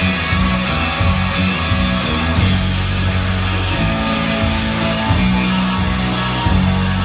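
Live band playing a song intro: a low, shifting bass guitar line under guitar, with a regular beat of cymbal hits on top.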